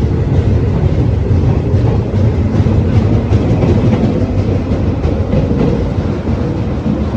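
Train carriage running along the rails, a loud steady low rumble.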